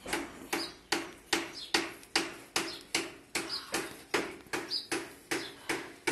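Steady rhythmic knocking, about two and a half knocks a second, each a sharp hit with a short ringing tail, as from hammering or chopping. A few faint bird chirps sound between the knocks.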